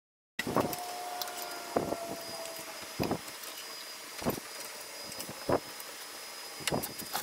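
Sharp metal knocks from a ball joint press being fitted and tightened over a lower ball joint, six in all at about one every 1.2 seconds. The sound cuts in abruptly about half a second in.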